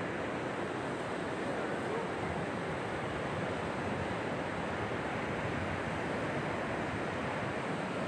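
Atlantic surf breaking on a sandy beach: a steady wash of waves.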